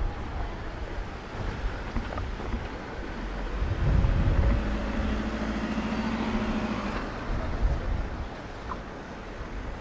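Street traffic noise with a motor vehicle passing: a low engine hum swells about three and a half seconds in, holds a steady tone for a few seconds, and fades by about seven seconds.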